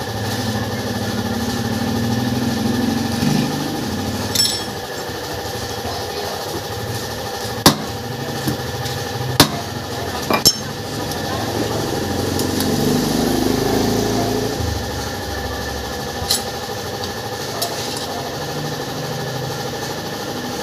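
A handful of sharp metal knocks and clinks at irregular intervals, typical of hand tools striking a motorcycle wheel rim during a dent repair. One clink about four seconds in rings on. Under them runs a steady background hum, with a low rumble swelling twice, like a vehicle going past.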